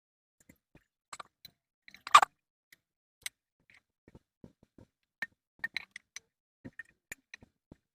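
Scattered light clicks and knocks of small hard objects being handled, with one louder knock about two seconds in.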